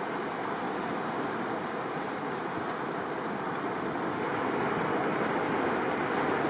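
Steady wash of surf breaking along the shore, growing a little louder about two-thirds of the way through.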